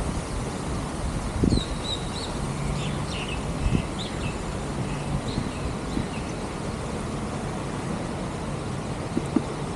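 Steady rushing wind and road noise from a bicycle ride, with a faint low hum coming and going. Small birds chirp several times in the first half, and there are a few brief thumps.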